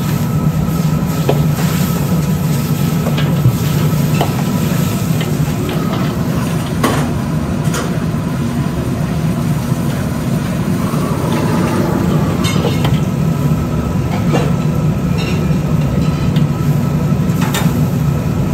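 Restaurant wok range running with a steady roar from the high-powered gas burner and exhaust hood, while a metal ladle stirs and scrapes noodles in the wok, giving a few scattered metal clinks over sizzling.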